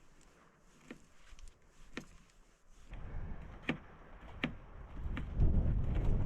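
A few sharp clicks or snaps, then wind gusting against the microphone from about five seconds in as a loud low rumble.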